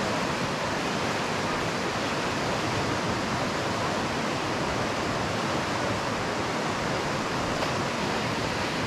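Fast-flowing river rushing steadily past, a constant even wash of water noise with no breaks.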